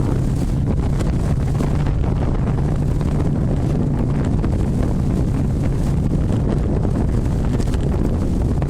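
Wind buffeting the microphone aboard a boat under way, over a steady low hum.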